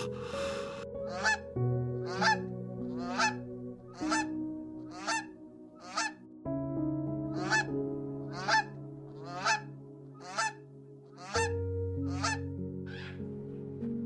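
Greylag geese honking, one call about every second in a steady series with two short pauses, over soft sustained background music.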